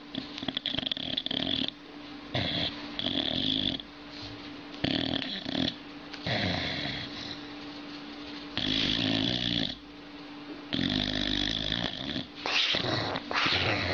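Sleeping dog snoring loudly: about eight rasping, high-pitched snores, each roughly a second long, at an uneven pace.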